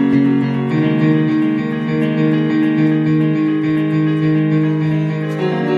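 Keyboard playing slow held chords, changing chord about a second in and again near the end.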